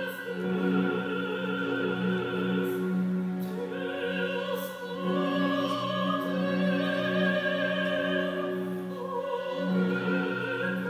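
Live classical-style music: a solo singer with vibrato over orchestral accompaniment, heard from far back in a large hall.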